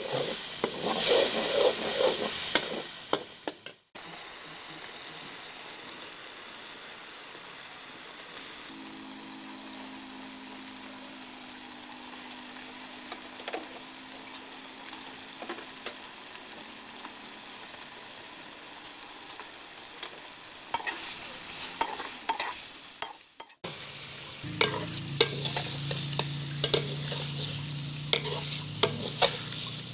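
Chicken pieces and masala frying in a metal karahi, a steady sizzling hiss, with a metal ladle clicking and scraping against the pan as it is stirred. The stirring clicks are busiest at the start and again near the end, and the middle stretch is a steadier, quieter sizzle.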